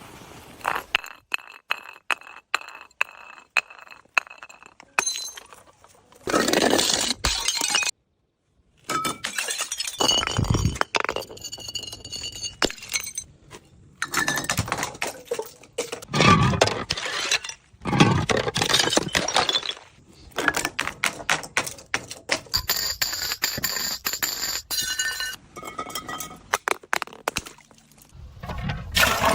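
Glass bottles knocking, clinking and shattering in a run of separate smashes. Between the loud crashes come repeated sharp knocks and ringing clinks of glass.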